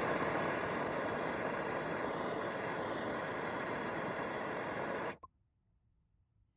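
Handheld gas torch flame hissing steadily as it heats a copper refrigerant-line joint for silver soldering. The hiss cuts off suddenly about five seconds in.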